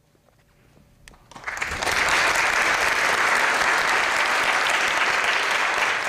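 Theatre audience applauding. The clapping swells in about a second and a half in, holds steady and starts to die away near the end.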